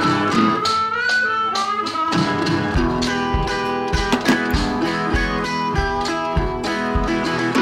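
Background music led by plucked guitar, with a steady bass beat coming in about three seconds in.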